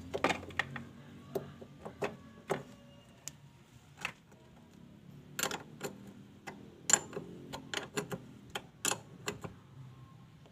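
Irregular metal clicks and taps of a combination spanner on a car battery's positive terminal clamp as it is fitted back on and tightened, coming a few at a time and thickest in the second half.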